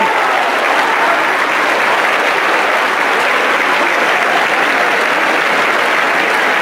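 Audience applauding steadily, a dense even sound of many hands clapping.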